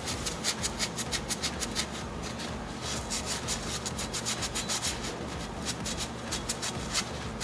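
A cloth rag scrubbed hard back and forth over a rusty wheel hub, wiping off rust loosened by penetrating spray, in quick repeated scratchy strokes.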